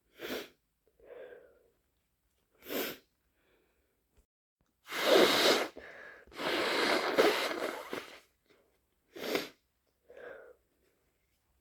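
A person with a cold sniffling in short bursts, with loud, wet sneezing in the middle lasting about three seconds.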